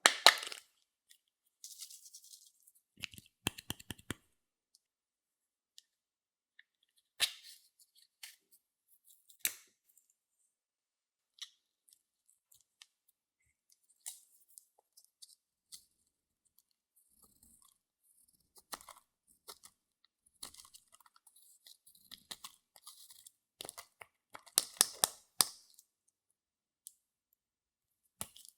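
Clear slime being pressed and squished by hand, giving sticky clicks, pops and crackles in scattered bursts with short silences between. The loudest bursts come right at the start, about seven and nine seconds in, and in a thick cluster around twenty-five seconds in.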